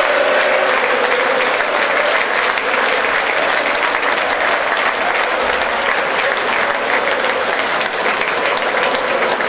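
Stadium crowd applauding: a dense, even patter of many hands clapping, with a faint held tone underneath.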